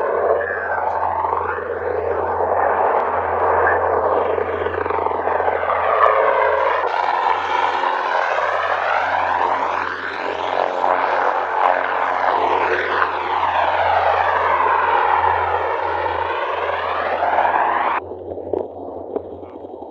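AH-1Z Viper twin-turbine attack helicopter flying past: rotor and turbine noise with a swirling, sweeping rise and fall as it passes. It drops abruptly to a fainter helicopter sound near the end.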